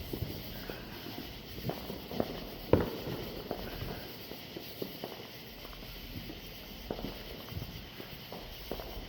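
Distant fireworks popping and cracking at irregular intervals, the loudest bang about three seconds in, mixed with footsteps.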